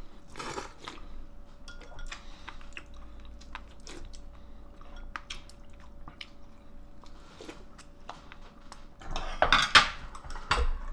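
A person chewing and eating fish stew, with small clicks of a metal spoon. About nine seconds in, a louder clatter of the spoon against the pot and bowl.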